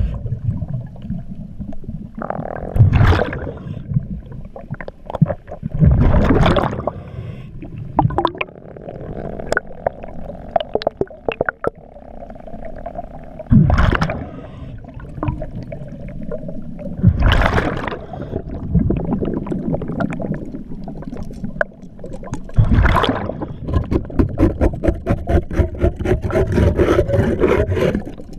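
Underwater breathing through a diver's regulator, with loud gushes of exhaled bubbles every few seconds. Small clicks and knocks come in between, and there is a fast rattling run near the end.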